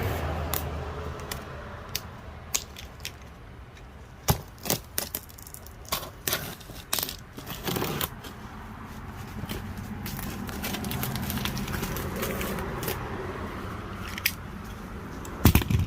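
Cardboard shipping box being cut and opened by hand: scattered clicks, scrapes and tearing of tape and cardboard, with a louder thump near the end.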